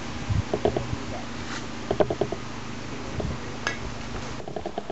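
Loose weight on a Hague MMC steadicam rattling in quick runs of clicks as the rig is carried and swung, about half a second in, around two seconds in and again near the end.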